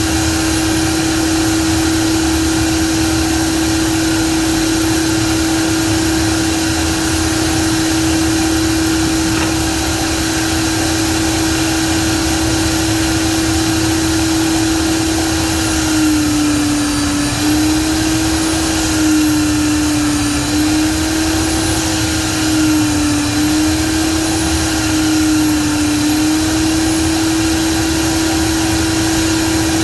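Electric motor of a woodworking power tool running steadily at high speed. Its pitch drops briefly several times in the second half, as if it is loaded against the work.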